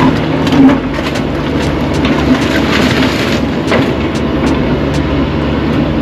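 Caterpillar 305E2 mini excavator's diesel engine running steadily, with scattered sharp clanks and knocks throughout.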